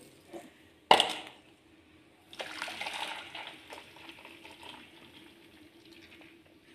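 A sharp metallic clink about a second in. Then sugarcane juice is poured from a steel bowl into a steel basin, a steady splashing pour that slowly tapers off.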